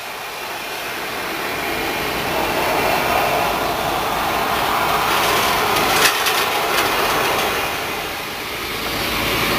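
Small fishing catamaran's engine running as the boat comes in fast across the water, with the rush of spray and wash off the hull. It grows louder over the first few seconds and dips briefly near the end.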